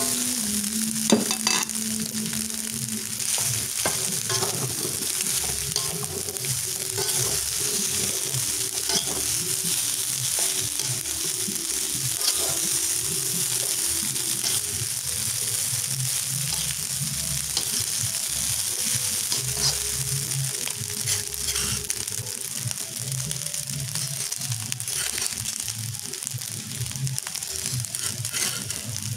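Rice and scrambled egg frying with a steady sizzle in a hot black iron wok, stirred and scraped with a metal spatula, with scattered clicks of the spatula against the pan.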